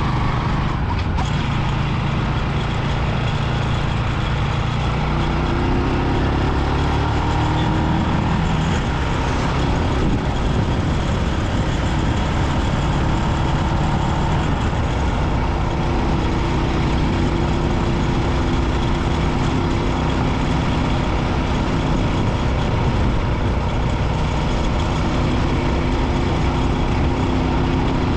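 Rusi 250 motorbike's engine running on the road over a steady rush of wind and road noise, rising in pitch a few seconds in as it speeds up, then holding steady.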